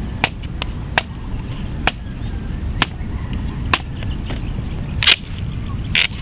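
Dry driftwood being struck against driftwood to break it up for firewood: about eight sharp knocks, roughly one a second, the loudest two near the end.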